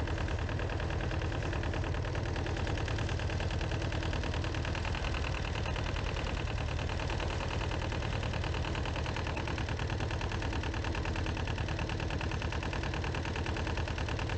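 Fishing boat's engine running steadily under way, a low, even, rapid beat with no change in speed.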